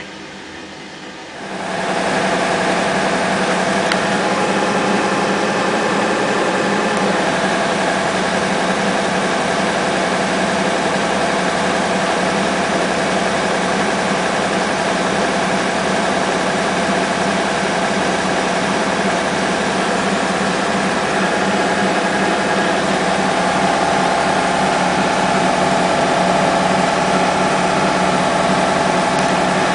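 Hotpoint-Ariston AVXXF137 washing machine running loud and steady. About a second and a half in it jumps sharply from a quieter running sound to a steady motor-and-drum whirr with a hum, and it grows slightly louder near the end.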